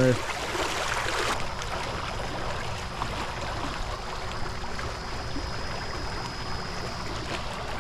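Steady wash of pond water rippling and moving among shoreline rocks, pushed into a current by a submerged de-icer.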